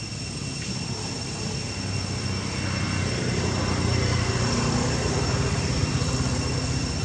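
A low engine drone that swells from about two and a half seconds in and eases off near the end, as of a distant engine passing by, over steady high-pitched tones.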